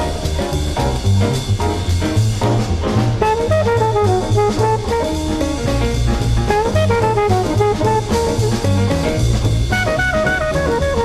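Jazz record playing: swing-style music with brass and a drum kit over a steady beat.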